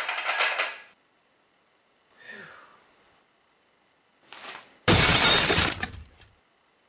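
Stacked plates rattling as the wobbling stack settles, dying away about a second in; near the end a loud crash of a plate shattering, lasting about a second and a half.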